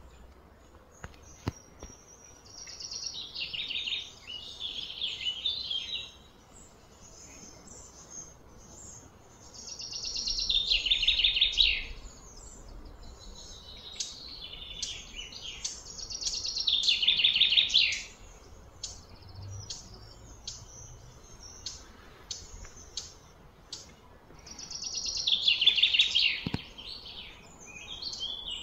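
Bird song: a fast, high-pitched chirping phrase about two to three seconds long, repeated four times with pauses between, and fainter chirps in the gaps.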